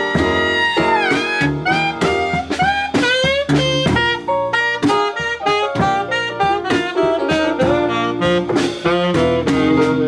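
Instrumental jazz: a long held lead note that falls off about a second in, then quick runs of short notes over a steady drum beat.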